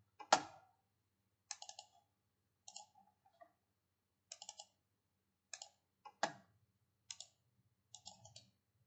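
Computer mouse clicks, in short clusters of quick clicks about once a second, two of them louder than the rest.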